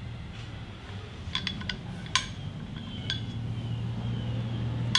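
A handful of light, irregular metallic clinks as the anti-seize stick is handled and worked against the metal hub and bearing bore of a Harley rear belt sprocket, the loudest just after two seconds. A low steady hum runs underneath.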